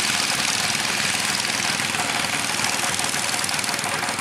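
Two-wheel walk-behind tractor's single-cylinder diesel engine running hard in a steady, fast chugging as the tractor is driven along on steel cage wheels.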